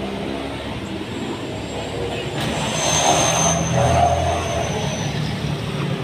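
Street traffic: an engine running steadily close by, with a car passing about three to four seconds in, the loudest moment, and a thin high whine during the pass.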